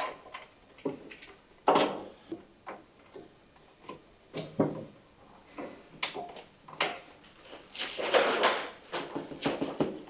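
Rubber coolant hoses being worked onto metal pipes by hand in a car chassis: irregular knocks and clunks against the metal panels and pipes, with a longer rubbing noise about eight seconds in.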